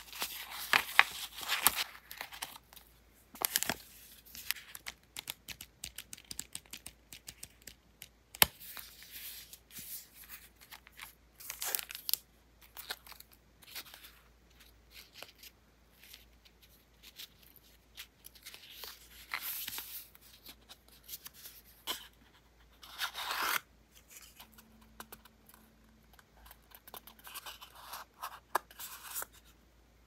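Thin translucent paper sheets and sticker pieces being shuffled and flipped by hand, crisp rustling and crinkling that comes and goes with short quiet pauses between handlings.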